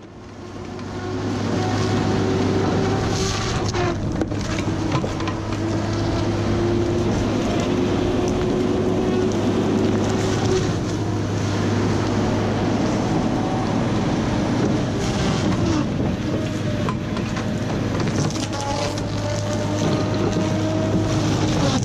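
Feller buncher running under load. Its diesel engine and hydraulics give a steady low hum and a whine that shifts in pitch now and then, as the disc saw head cuts through snowy trees, with sharp cracks of wood and branches. The sound fades in over the first couple of seconds.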